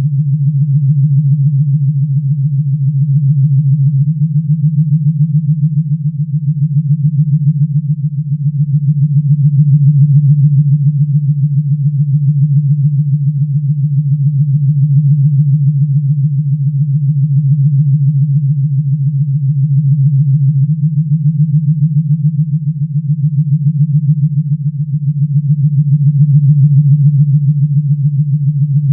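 Star Trek sound effect: a low, steady synthesized hum with a rapid flutter, slowly swelling and easing in loudness.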